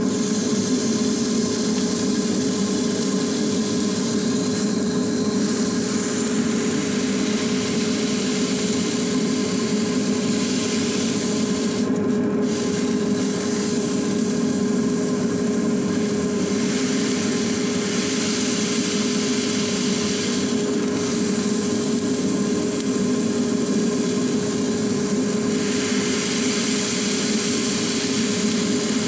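Ground-beef smash burger patties sizzling in a hot pan, the hiss swelling and easing, over the steady whirring hum of an air fryer's fan.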